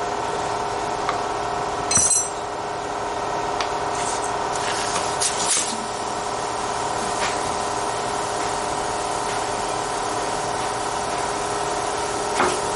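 Air compressor running steadily while a dirt-bike front tyre is inflated. About two seconds in there is a sharp snap, the tyre bead popping onto the rim as it seats, followed by a few lighter clicks.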